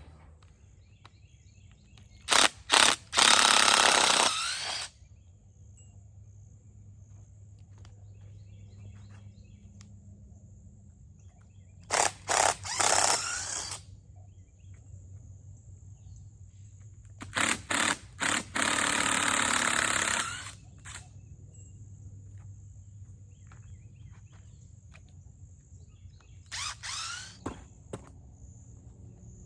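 Steady high chirring of insects such as crickets over a low hum, broken four times by loud rushing, hissing noises lasting one to three seconds, each starting with a few sharp clicks.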